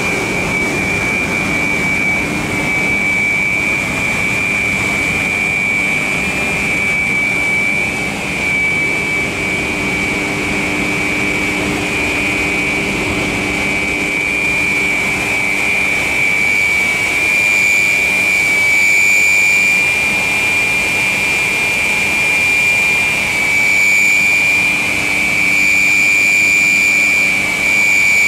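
Pellet plant machinery running: a loud, steady mechanical drone with a constant high-pitched whine over it, growing a little louder about halfway through.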